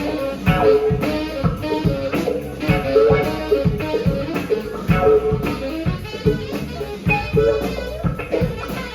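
A band playing an instrumental passage with guitar and drum kit over a steady beat, with no vocals.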